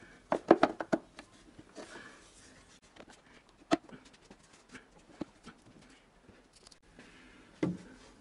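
Hands handling a plastic upper timing-belt cover on an engine that is not running: a quick run of knocks and rattles in the first second as the cover is pressed into place, then scattered single clicks and light knocks.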